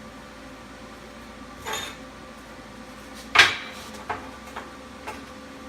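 Metal clanks and knocks from steel parts and tools being handled on a steel welding table: a short scrape, then one sharp loud clank with a brief ring about three and a half seconds in, followed by three lighter clicks.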